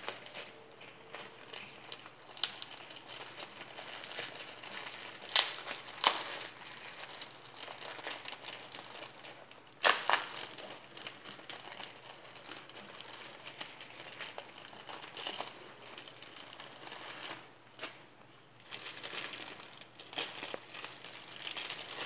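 Thin clear plastic bags crinkling and rustling as they are pulled open and peeled off a bundle of paper banknotes, with three sharper, louder crackles in the first half.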